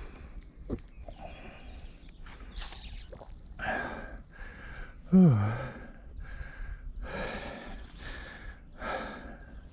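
A mountain biker breathing hard, heavy breaths under a second apart, with a loud grunt falling in pitch about five seconds in. A low steady rumble runs underneath.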